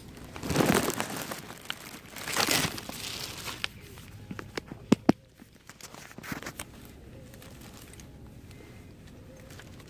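Crinkling and rustling handling noises in two bursts near the start, then two sharp clicks about five seconds in.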